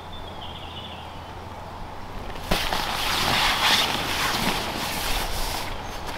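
Rustling and scuffling of tent fabric and sleeping gear being handled at close range, starting suddenly about two and a half seconds in and going on unevenly.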